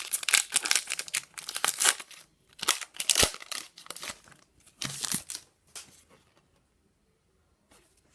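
Crinkling and tearing of a foil Pokémon booster pack wrapper being handled and ripped open, a dense crackle for about six seconds that stops near the end.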